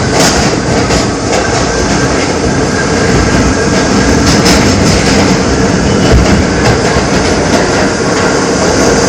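NYC subway R68 car running on the track, heard from inside the car: steady wheel and rail noise with a couple of knocks from the rail joints, and a steady motor howl running under it, which this car is known for.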